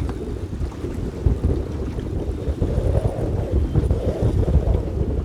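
Wind buffeting the microphone in the open, an uneven low rumble that rises and falls in gusts.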